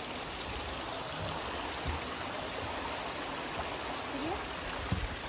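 Steady rushing of a small creek cascading down rock ledges, with a brief thump near the end.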